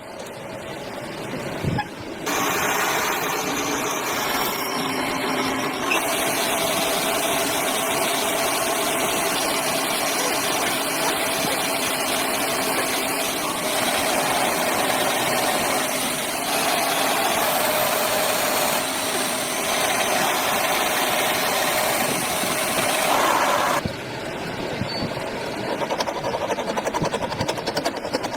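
Lathe cutting metal: a loud, steady machining noise with a faint whine, starting about two seconds in and dropping away suddenly near the end.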